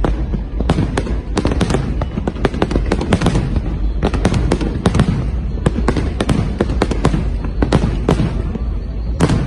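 Fireworks display going off in a dense volley: many sharp bangs and crackles a second, overlapping, over a continuous low rumble.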